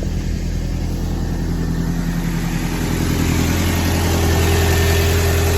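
Audi A4's 1.8-litre turbo four-cylinder engine running steadily just after starting, getting a little louder from about halfway through. It now fires because a failed coil relay, which had cut spark to the plugs, has been replaced.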